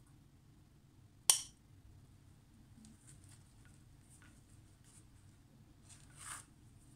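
A metal spoon clinks sharply once against a ceramic bowl about a second in, with a brief ring. Faint light ticks follow, then a soft scrape near the end as pieces of naan bread are set on the plate.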